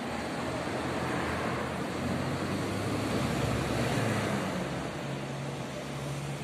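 Road traffic noise: a motor vehicle's low hum rising to a peak about four seconds in, then easing off.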